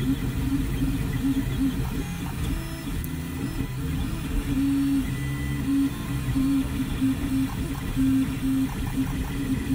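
An FDM 3D printer printing. Its stepper motors whir in short stretches of steady tone that start and stop as the print head moves back and forth, over the steady hum of the cooling fans.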